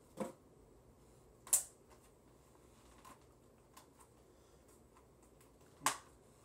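A few short clicks and rustles of items and packaging being handled while unboxing, the loudest a brief crisp crackle about a second and a half in, over a faint steady hum.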